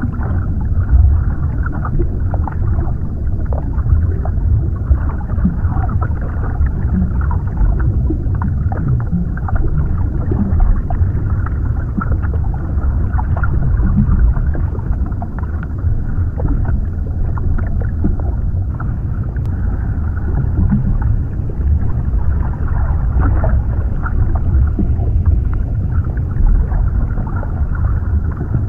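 Underwater ambience: a deep, steady, muffled rumble of water, with small bubbling pops and crackles over it.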